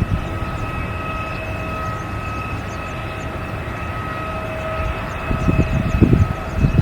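Jet airliner engines running with a steady whine over a low rumble, typical of a Boeing 787-8 at low thrust. Irregular deep gusts of rumble come in near the end.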